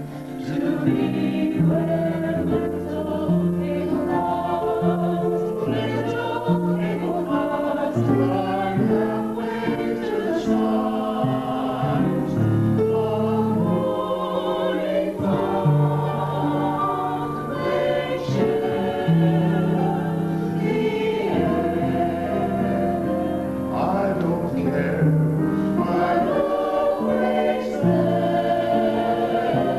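Mixed choir of men's and women's voices singing a song in harmony, with long held notes.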